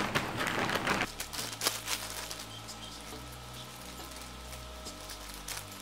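Plastic courier mailer bag crinkling and rustling as it is handled, loudest in the first second, then quieter rustling while it is cut open with scissors.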